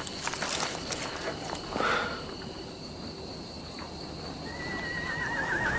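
A steady high insect chirring, like crickets at night. Near the end a horse whinnies: one call that wavers up and down quickly.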